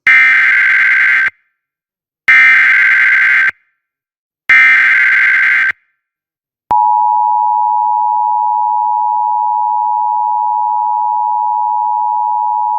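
Emergency Alert System broadcast: three short bursts of buzzing SAME header data tones, a pause, then about six and a half seconds in the steady two-tone EAS attention signal (853 and 960 Hz) starts and holds, announcing an emergency alert, here a flash flood warning.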